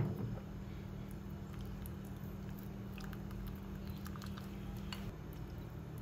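Wooden spoon stirring a thick red paste in a small glass cup: soft sticky squishing with a few light clicks of the spoon against the glass. A steady low hum underneath stops about five seconds in.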